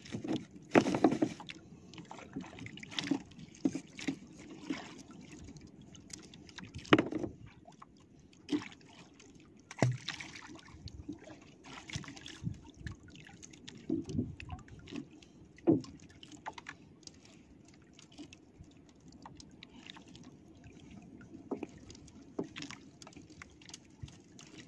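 Water sloshing and lapping against a small outrigger fishing boat, with scattered knocks and handling noises as a handline is worked by hand.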